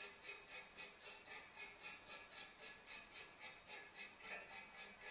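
Small all-brass gun-cleaning brush scrubbed rapidly back and forth on a stainless steel hairpin leg, about four faint strokes a second, rubbing brass onto the steel to plate it.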